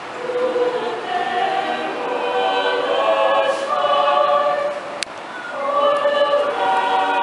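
A mixed choir singing, holding long sustained notes that move from chord to chord. A single sharp click sounds about five seconds in.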